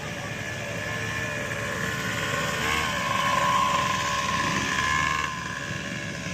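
Small off-road vehicle engine running, swelling louder to a peak around three and a half seconds in, then dropping off sharply a little after five seconds.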